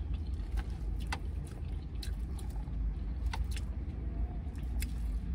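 Eating a salad with croutons inside a car: scattered short crunches and clicks over a steady low rumble from the car.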